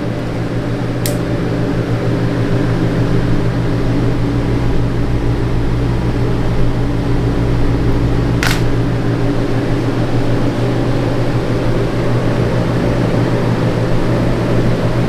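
Heat gun blowing steadily while heat is applied to the spliced red and white microphone wires, a constant fan hum with a low drone. Two short clicks cut through it, about a second in and again after about eight seconds.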